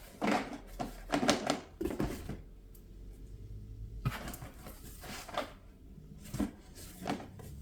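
Packaging crinkling and small items clicking and knocking as a delivered order is unpacked by hand, in scattered short bursts with a quieter stretch in the middle.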